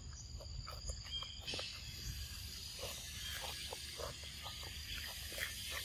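Steady insect buzzing that thickens into a denser, hissing chorus about a second and a half in. Over it come irregular small clicks and crunches from a macaque chewing cucumber close to the microphone.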